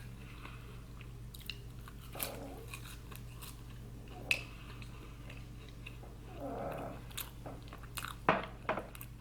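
Faint scattered clicks and light rustling of plastic sauce cups and takeout food packaging being handled close to the microphone, with a sharper click about four seconds in and two more near the end, over a steady low hum.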